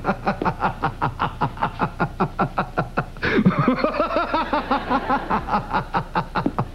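A man laughing hard in a rapid, even run of short breathy 'ha' pulses, about six a second, which turn more voiced and drawn out about three seconds in.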